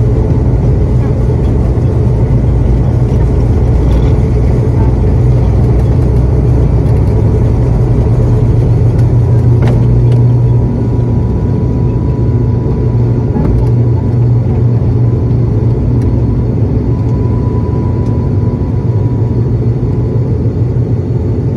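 ATR 72-500's Pratt & Whitney PW127 turboprops and propellers at takeoff power, heard from the cabin beside the engine: a loud, steady propeller drone with a deep hum through the takeoff roll and liftoff. The level dips slightly about halfway through.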